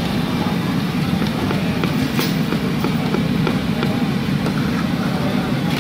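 Steady low rumble at a street-side deep-frying stall, with scattered light clicks and crackles as fries are scooped out of hot oil with a wire-mesh strainer against an aluminium pot.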